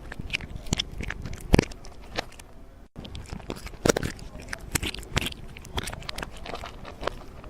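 Irregular crunching and crackling clicks, uneven in loudness, cutting out briefly about three seconds in.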